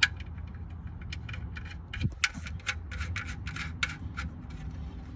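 Light metal clicks and scrapes, irregular, as the oil-pan drain plug bolt is put back in after draining the oil, with a sharp click at the start and a dull knock about two seconds in.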